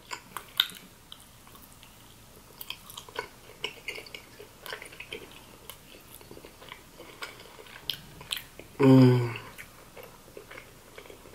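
Close-miked biting and chewing of frozen strawberry mochi ice cream: a steady run of small wet clicks and smacks of the mouth. Near the end comes one short, loud hum of the eater's voice, the loudest sound here.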